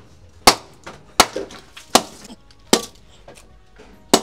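A long-bladed knife chopping and splitting small pieces of firewood for kindling: five sharp chops, a little under a second apart, with a longer pause before the last.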